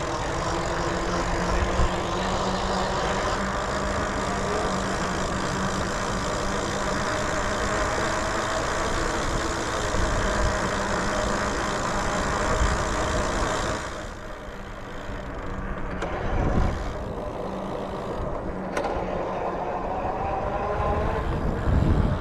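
Motor vehicle engine running nearby with road noise, steady for about fourteen seconds before dropping away. An engine note rises again near the end.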